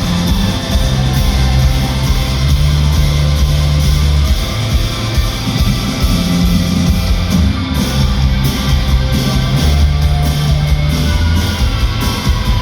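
Rock band playing live through an instrumental stretch without vocals: electric guitars over sustained bass notes and steady drum hits.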